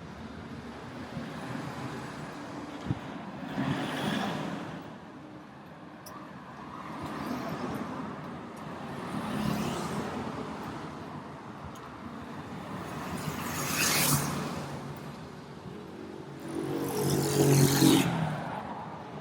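Road traffic: cars passing one after another, each rising and fading, about four in all, the last near the end the loudest, with its engine plainly heard.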